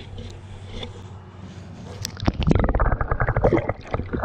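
Water splashing and gurgling close by, much louder from about two seconds in.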